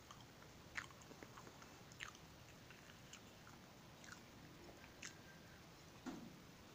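Person chewing and eating a pancake, with a few sharp mouth clicks and smacks, and a heavier bite into the pancake about six seconds in.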